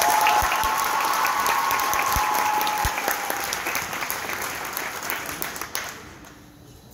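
Audience applauding, with a long high-pitched cheer held over the clapping for the first few seconds; the applause dies away near the end.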